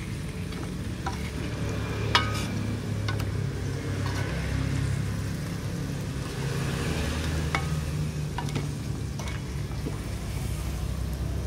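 Metal ladle stirring and scraping in a metal wok of fried pomfret in simmering balado chilli sauce: scattered clinks and scrapes of metal on metal, the loudest about two seconds in, over a faint sizzle and a steady low rumble.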